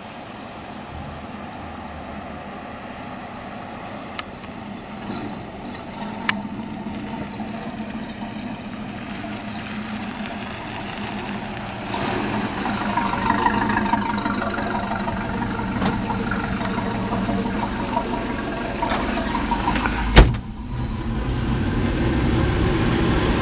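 1946 Chevy pickup with a Chevy crate 350 V8 running as it drives back toward the microphone, its engine note growing steadily louder. A single sharp knock about twenty seconds in is the loudest moment.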